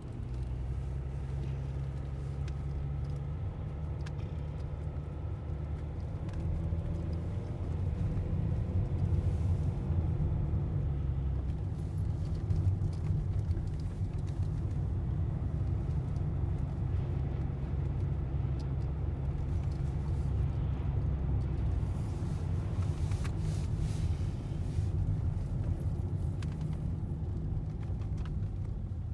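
Road and engine noise inside a moving car: a steady low rumble with a faint engine hum that shifts slowly in pitch, easing off slightly near the end.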